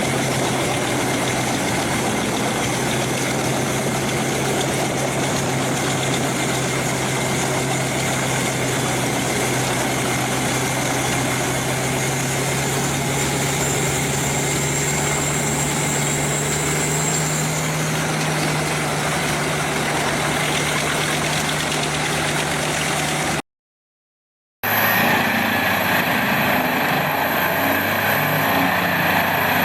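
Engine of a heavy forestry machine running steadily, its pitch rising slightly about halfway through. The sound cuts out briefly near the end and comes back as a similar engine running with a higher hiss.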